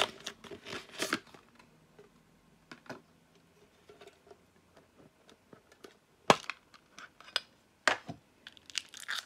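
A small metal trading-card tin and its packs being handled and opened: scattered clicks and crinkling, wrappers tearing, and sharp knocks about six and eight seconds in.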